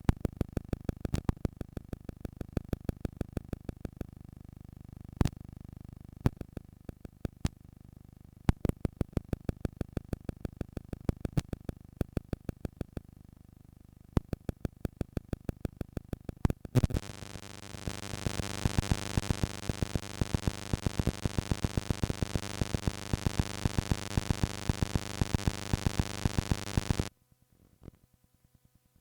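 Noisy playback from an old cassette tape: a rapid run of sharp clicks, several a second, over hiss and hum. About two-thirds through, a loud buzzing tone with many overtones comes in, then cuts off abruptly, leaving near silence.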